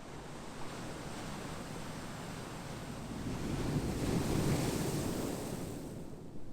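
Ocean wave washing in: a broad rushing surge that builds to its loudest about four seconds in, then recedes.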